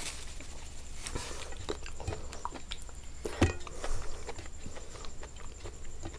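Close-up eating sounds: a person chewing and biting food, with a run of small wet mouth clicks and crunches and one sharper click about halfway.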